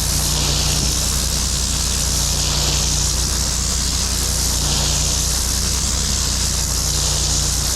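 8 gallon-per-minute Hotsy hot-water pressure washer running steadily, its engine humming under the loud hiss of the high-pressure spray.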